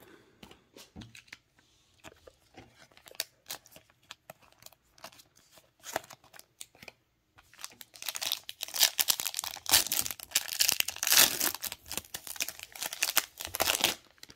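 Light taps and rustles of trading cards being handled, then, about eight seconds in, a trading card pack wrapper being torn open and crinkled in the hands for about six seconds.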